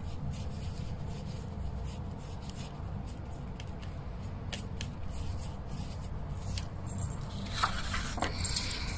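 Paintbrush scraping and dabbing paint on a paper-plate palette, with faint light taps, then a couple of louder scratchy brush strokes across paper near the end, over a steady low background rumble.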